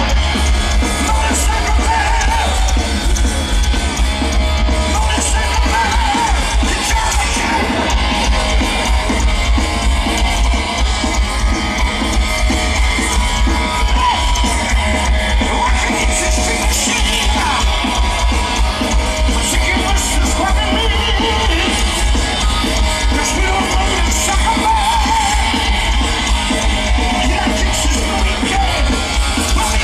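Heavy metal band playing live: distorted electric guitars, drums and a singer's high, wavering vocals through a large PA, with a heavy, boomy low end.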